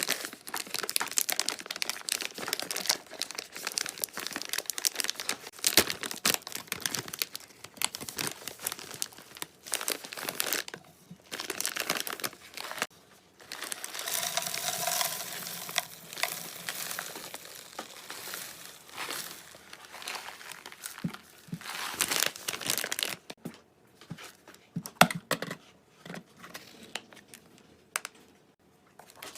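Irregular crinkling and rustling, like something being crumpled and handled, stopping and starting with brief pauses.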